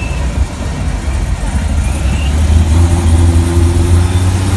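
Car engine running with a deep, steady low rumble, its pitch climbing slowly from about halfway through as it revs up.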